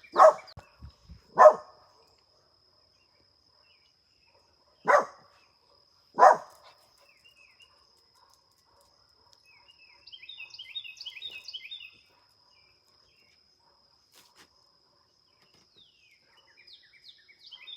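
A dog barking four single barks, in two pairs a few seconds apart. Bluebirds then give a quick run of short high chattering chirps and, near the end, more short falling call notes, which the uploader takes for a possible warning call at the cat and dog.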